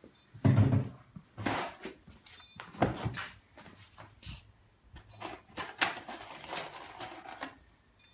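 Wooden doghouse panels knocking and bumping as they are handled and fitted together, with a heavy thud about half a second in and lighter knocks after. Near the end, a clatter of screws rattling in their cardboard box.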